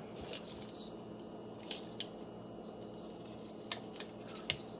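Plastic Transformers action figure being handled and its joints moved, giving a few scattered light clicks over quiet room tone.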